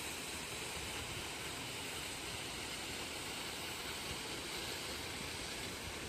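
Steady rush of water from the creek and its small waterfall in the canyon below, an even hiss without a break.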